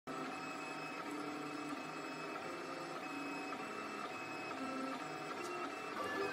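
Ultimaker 3D printer printing, its stepper motors whining in steady tones that jump to new pitches as the print head changes moves.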